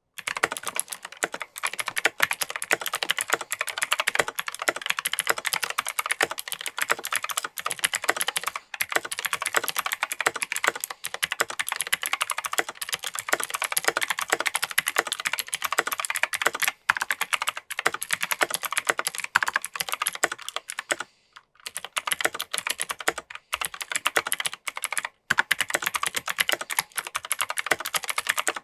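Fast, continuous typing on a mechanical keyboard with Kailh Pro Light Green clicky (click-bar) switches on an alumina plate in a plastic case: a dense stream of crisp, high clicks with a few brief pauses, the longest about 21 seconds in.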